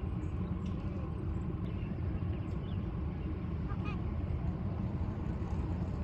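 Steady low outdoor rumble with a few faint, scattered bird calls.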